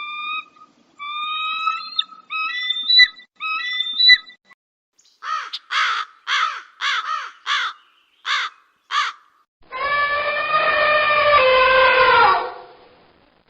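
A succession of animal calls. First come a few short, clear, whistle-like calls. Then about eight short calls at roughly two a second, and finally one longer harsh call lasting about two and a half seconds.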